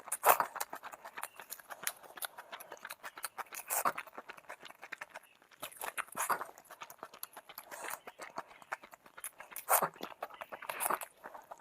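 Close-up chewing and eating sounds: rapid wet mouth clicks and smacks, with louder chews every few seconds.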